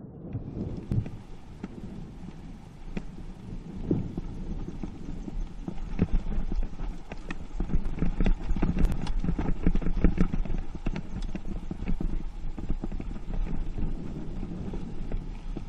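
Mountain bike rattling and clattering over a bumpy dirt singletrack, with many sharp, irregular knocks, over a steady low wind rumble on the camera's microphone.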